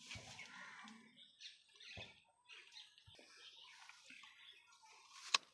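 Birds chirping faintly in short scattered calls, with a single sharp click near the end.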